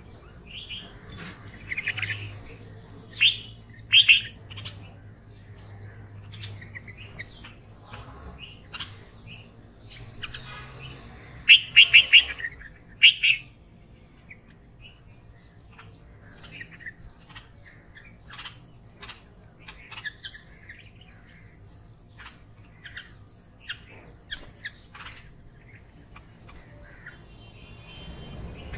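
Red-vented bulbuls calling with short, bright chirps scattered throughout, and a loud run of four quick calls about twelve seconds in.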